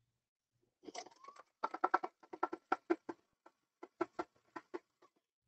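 Domestic sewing machine stitching slowly in two short runs, its needle mechanism clicking about six times a second, with a brief pause in the middle.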